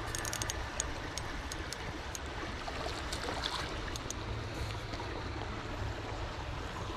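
Steady rushing background noise, with a few light, sharp clicks in the first second.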